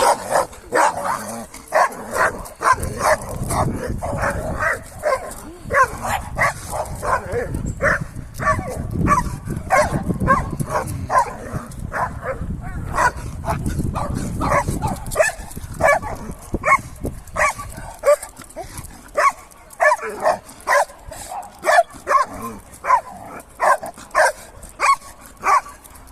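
Large-breed Šarplaninac shepherd puppy barking excitedly, short barks repeated about two a second, with a low rumble underneath during the first half.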